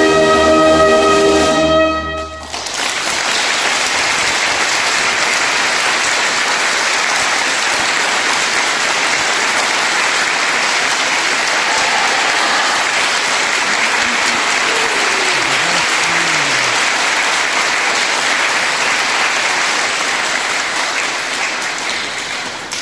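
A wind band's final sustained chord, with trumpet and brass on top, cuts off about two seconds in, and an audience breaks into steady applause that fades near the end.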